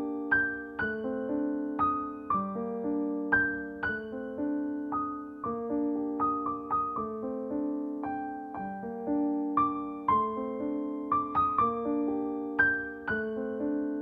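Solo piano playing a slow melody of struck notes over held lower chords, without a break.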